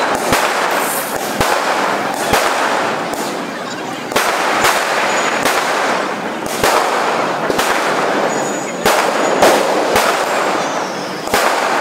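Diwali fireworks and firecrackers going off: a dense run of sharp bangs at irregular intervals over a steady crackle.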